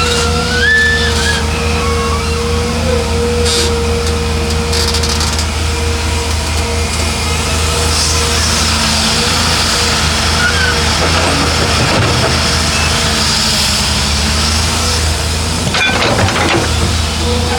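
Heavy earthmoving machinery, excavator and dump truck, running steadily: a low diesel drone with a constant whine over it, a hiss in the middle, and a few clanks near the end.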